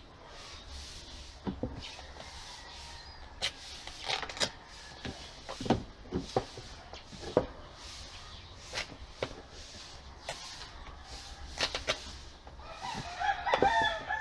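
A rooster crowing once near the end, the loudest sound here, over scattered light knocks and clicks of hand work with cardboard and tools on a workbench.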